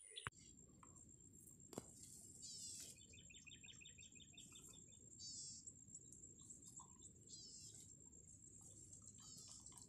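Faint chirps of small birds, short downward-sweeping calls every couple of seconds with a quick trill about three seconds in, over a steady thin high tone and a low rumble; a faint click about two seconds in.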